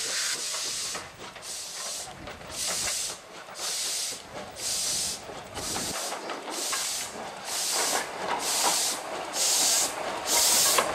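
Former Yugoslav Railways class 62 steam tank locomotive (No. 30075) working slowly, each exhaust beat a loud hiss of steam, about one a second and getting louder toward the end; the steam venting low around the cylinders marks the drain cocks as open.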